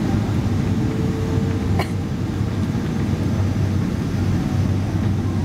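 Steady cabin noise of a Boeing 777-200ER in flight, engine drone and airflow heard from inside the passenger cabin, with a low hum running through it. A single sharp click comes a little under two seconds in.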